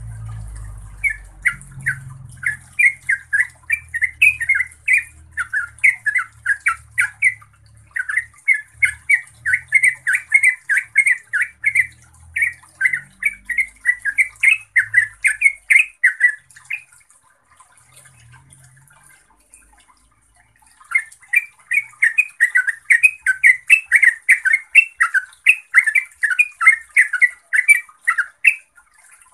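Yellow-vented bulbul singing its rapid, bubbly chattering song in long unbroken runs of quick notes, the continuous 'ngeropel' delivery. The song stops for about four seconds past the middle, then starts again.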